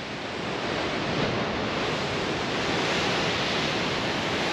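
Heavy surf breaking against a rocky cliff shoreline: a steady rush of crashing waves in a rough sea.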